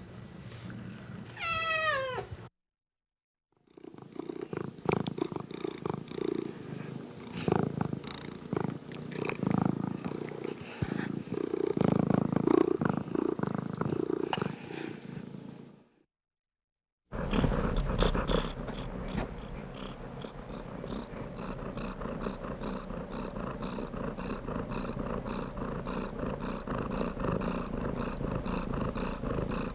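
Domestic cat sounds: one falling meow at the start. After a short silent cut comes close, uneven purring. After a second cut the purring runs steady and evenly pulsed.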